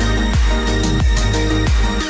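Electronic music with a steady kick-drum beat, about three beats a second, over held bass notes.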